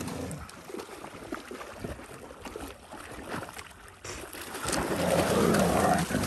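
Dogs splashing and wading through shallow lake water at the shore. The splashing grows louder and denser about four and a half seconds in, as they push out of the shallows onto the bank.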